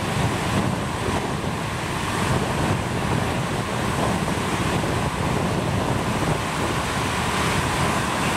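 Steady rush of whitewater rapids pouring over rocks, an even roar of water with no let-up.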